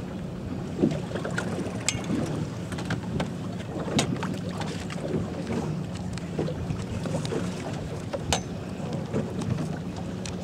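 Fishing boat's motor running steadily with a low hum, under wind on the microphone, with scattered sharp clicks and knocks.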